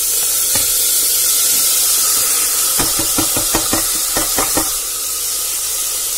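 Chopped tomatoes dropped into hot oil with garlic and cumin, sizzling with a loud, steady hiss. About three seconds in comes a quick run of some eight knocks as the plate and the last pieces are worked into the pan.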